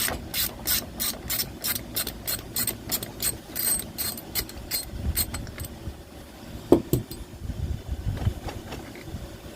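Socket wrench ratchet clicking steadily, about three clicks a second, as a 14 mm wheel bolt is backed out; the clicking stops about six seconds in, followed by one sharp knock and a few low thumps.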